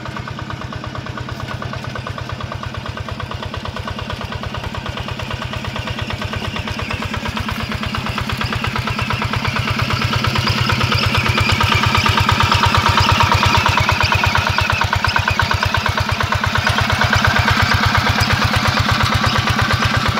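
Yanmar two-wheel hand tractor's single-cylinder diesel engine running steadily with a fast, even chugging, working under load as it pulls a plough through hard, wet paddy soil. It grows louder as the tractor comes closer.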